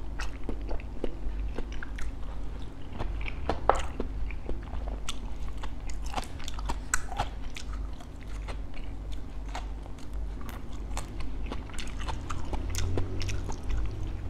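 Close-up chewing and crunching of crispy bánh khọt, fried Vietnamese mini rice-flour pancakes, with irregular crisp crackles throughout. A steady low hum runs underneath.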